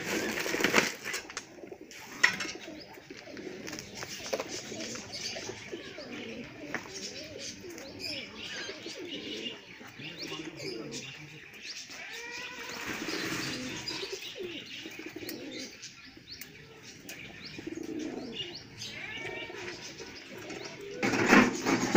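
Domestic pigeons cooing repeatedly in low, rolling calls, with higher bird chirps at times and a brief louder burst of noise near the end.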